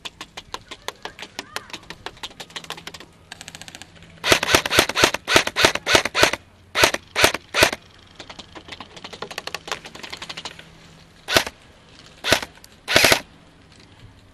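Airsoft guns firing. It starts with faint rapid fire. About four seconds in comes a loud burst of rapid shots, then three single shots and more faint rapid fire. Two loud single shots and a short burst come near the end.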